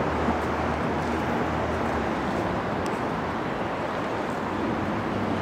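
Steady city street ambience: continuous road-traffic noise with a low rumble underneath.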